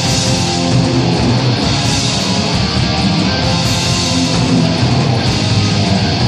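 Heavy metal rock music with guitar and drums, loud and continuous.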